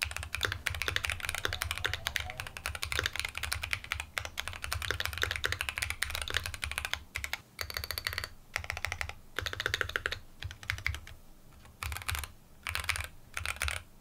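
Typing on a Keychron Q2 65% aluminium custom mechanical keyboard built with an FR4 plate, Kilmat dampener and tape mod, with stock Mode Reflex switches. Rapid, steady keystrokes come first; about halfway through they break into short bursts with pauses between them.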